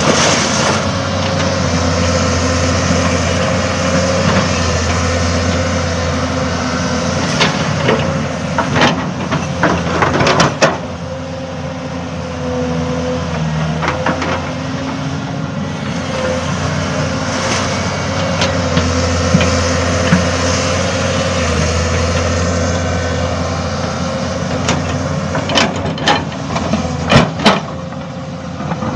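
Excavator's diesel engine running steadily under working load, with a constant whine over the drone that swells and eases at times. Scattered sharp knocks come in two clusters, around a third of the way in and again near the end.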